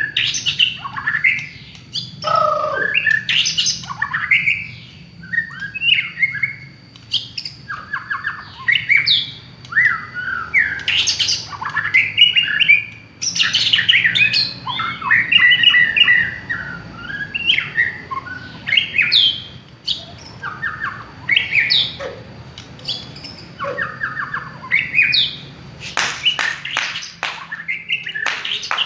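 White-rumped shama (murai batu) singing a long, varied song of quick whistled phrases that slide up and down, mixed with harsh chattering notes, with only brief pauses; a run of fast rattling notes comes near the end.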